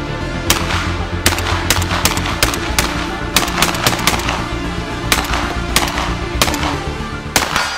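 Mossberg 940 Tactical semi-automatic 12-gauge shotgun fired shot after shot in a rapid string, about two to three shots a second.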